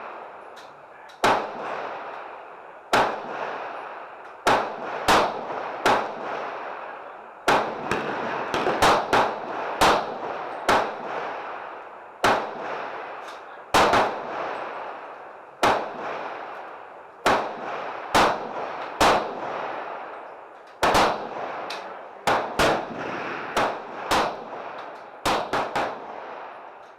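Gunfire at a shooting range: about two dozen shots at irregular intervals, some in quick pairs or triplets, each followed by a long echo.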